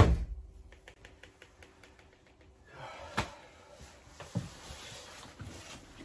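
A loud knock on a uPVC French door's frame right at the start, followed by scattered small clicks and two softer knocks from handling the door.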